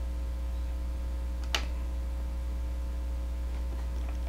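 Steady low hum of room tone, with one faint click about a second and a half in.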